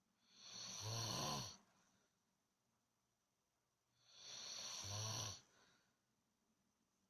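Two snores about four seconds apart, each a rattling, breathy snore lasting just over a second, from someone or something asleep.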